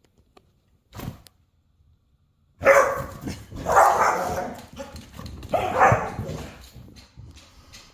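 Dogs play-fighting, giving three loud, rough growling barks starting about two and a half seconds in, after a single thump about a second in.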